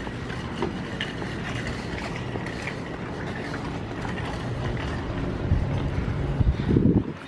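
Outdoor parking-lot ambience: a steady low rumble of vehicle traffic, with a louder low surge near the end.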